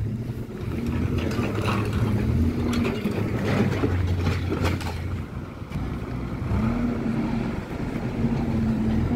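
A large engine running steadily, its pitch stepping up a little about six and a half seconds in, with a few light knocks over it.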